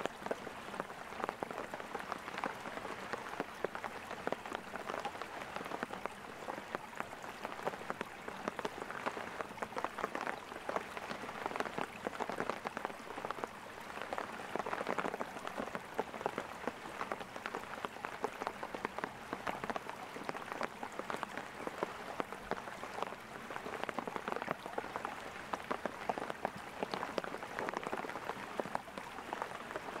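Steady rain falling: a dense, even patter of countless small drops.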